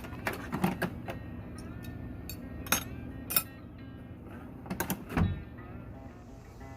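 Quiet background music under a string of sharp clicks and knocks from hand tools being handled and set down, with a heavier low thump about five seconds in.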